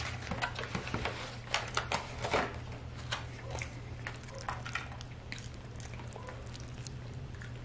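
White plastic fork clicking and scraping against a clear plastic takeout container of wet chili cheese fries, the thin plastic crackling as the container is lifted and tilted. The clicks come in scattered clusters, thickest in the first three seconds and sparser after, over a steady low hum.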